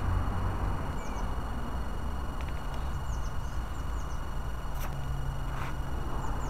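Steady low rumble of wind and road noise on the microphone while riding an electric bike along a lane. Small birds chirp a few times.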